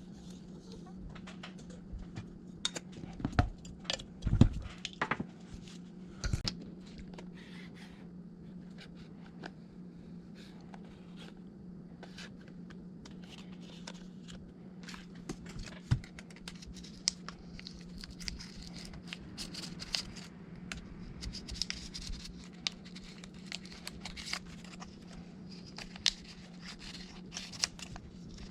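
Hand work on an iPad with small repair tools: scattered clicks, scrapes and crinkling, with a cluster of louder knocks about three to six seconds in, over a steady low hum.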